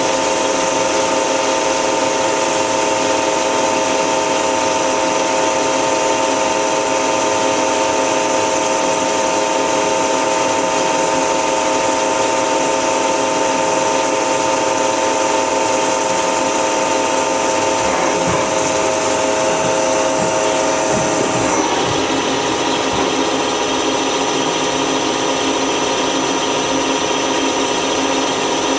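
Miyano BND-34S CNC turning center running a program: a steady machine whine made of several tones over a dense hiss. About three-quarters of the way through, the whine changes abruptly and the sound drops slightly, with a couple of faint knocks just before.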